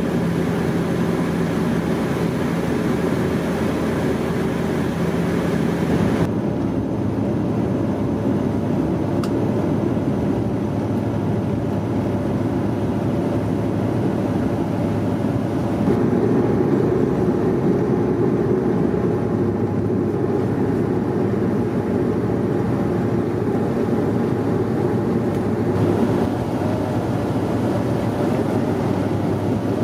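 Cabin drone of a Bombardier Q400's turboprop engines and propellers, a steady loud hum. The higher hiss drops away abruptly about six seconds in, and the deeper drone swells a little louder around sixteen seconds in, on approach with the landing gear down.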